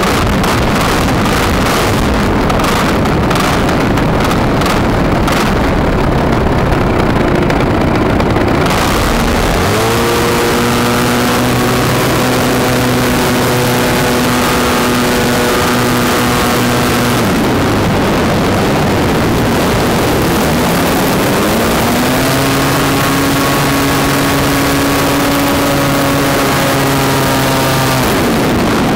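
Extra 300 aerobatic plane's engine and propeller heard from on board. Wind buffets the microphone hard for the first eight seconds or so. Then a steady engine drone comes through, sags and climbs back in pitch around the middle, and falls away near the end.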